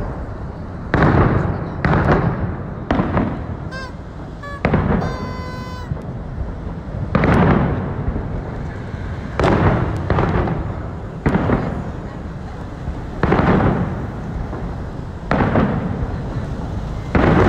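Aerial firework shells bursting overhead: about a dozen loud booms, one every one to two seconds, each trailing off in a rumble.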